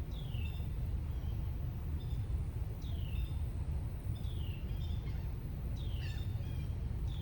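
A bird repeating a short, falling call about every one and a half seconds over a steady low rumble.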